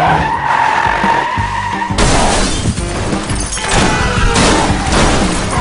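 Car tyres screeching under hard braking for nearly two seconds, then a sudden loud crash of vehicles colliding, with a second wave of crash noise a couple of seconds later, over a dramatic film score.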